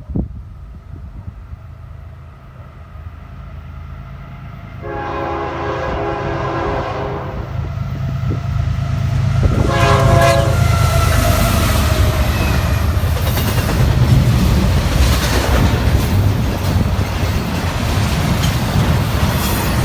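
Nathan K5HL five-chime air horn on a fast intermodal freight's lead locomotive, sounding a long blast about five seconds in and a second, shorter one about ten seconds in as the train approaches. The diesel locomotives and cars then pass close by, loud rumbling and rail noise.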